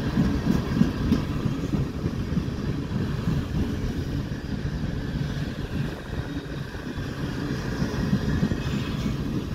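Freight cars of a long mixed manifest train, tank cars and boxcars, rolling past: a steady low rumble of steel wheels on the rails.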